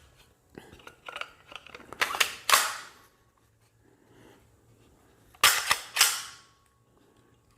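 Walther PDP Pro-E pistol being handled and its slide racked: light clicks of handling, then two pairs of sharp metallic clacks, each pair about half a second apart, as the slide is pulled back and snaps forward.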